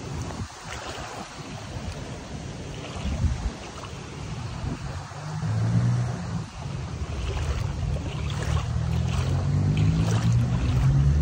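Rubber rain boots sloshing and splashing through shin-deep floodwater, with wind on the microphone. About halfway through, a vehicle engine's hum comes in and grows louder, rising in pitch toward the end.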